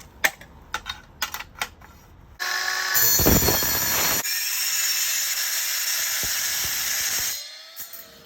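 A few light clicks and taps, then a power tool runs steadily for about five seconds and stops.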